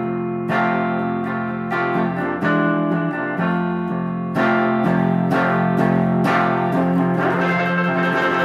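Red semi-hollow-body electric guitar played through a small combo amp: chords struck about once a second, each left to ring, changing as the passage moves on.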